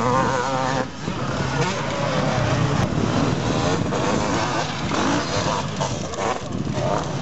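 Motocross dirt bike engines revving hard on the track, pitch rising and falling as the throttle is worked. The sound breaks off briefly about a second in, then runs on.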